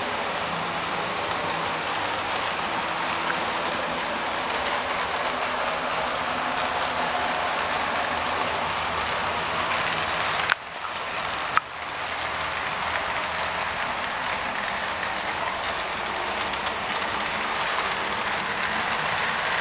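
Model diesel locomotives running on a model railroad layout: a steady, noisy whir. About halfway through, the sound dips briefly between two sharp clicks about a second apart.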